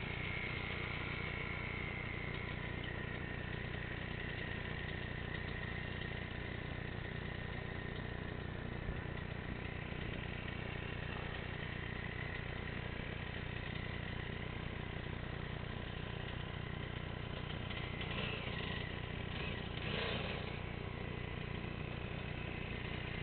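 Dirt bike engine idling steadily, with a faint high whine that drifts slowly in pitch and two brief rises in level near the end.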